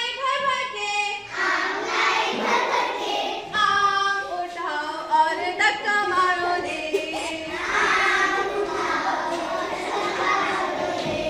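A group of children singing a song together, led along by a woman's voice, in held and gliding notes.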